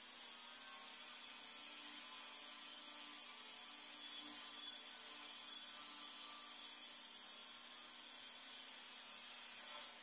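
Steady hiss of a butane gas soldering iron's burner while its hot tip solders XLR cable wires. There is a brief louder noise near the end.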